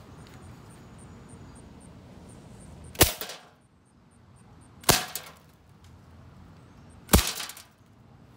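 Three shots from a metal BB gun, about two seconds apart, each followed by a brief clatter as it hits small glass bottles of nail polish.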